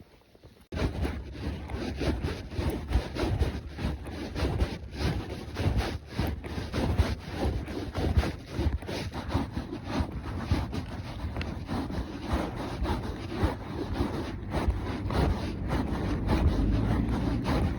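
Ridden horse's hooves striking the ground in a fast, dense run of beats, with wind buffeting the microphone and rubbing noise over them. The sound starts suddenly under a second in.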